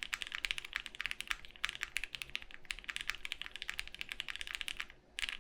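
Fast continuous typing on a Studio Kestra Nue custom mechanical keyboard, built plateless with foam and fitted with lubed linear switches: a rapid patter of keystrokes that pauses briefly near the end, then resumes in a short burst.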